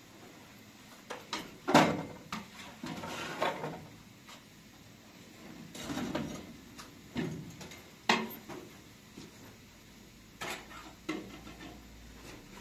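Kitchenware being handled and set down: scattered knocks and clatters of a kettle, pitcher and pots, the sharpest about two seconds in and again about eight seconds in.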